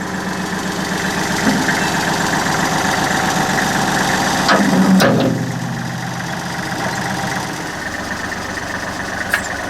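Backhoe's diesel engine running steadily. About five seconds in it swells louder and ends in a sharp clank, then settles lower; a second sharp clank comes near the end.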